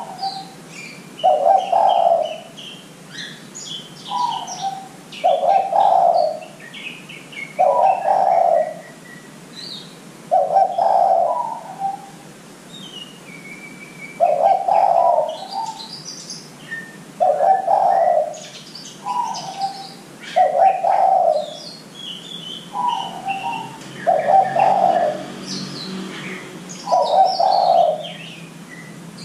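Spotted dove (derkuku) cooing over and over, a call every two to three seconds, many of them a short higher note followed by a longer, lower coo. Fainter high chirps and twitters from small birds run underneath.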